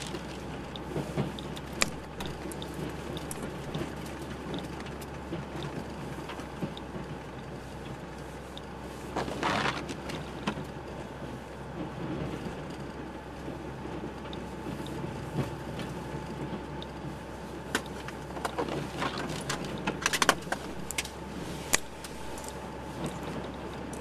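Snow-plow truck running, heard from inside the cab while plowing: a steady low engine drone with scattered clicks and rattles, and a few brief louder noisy bursts, one about nine seconds in and several near the end.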